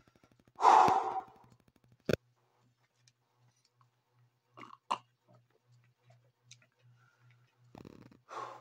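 A person sighs heavily about a second in, and a sharp knock follows about a second later. Around five seconds there are a few short sips from a mug, and another breath out comes near the end.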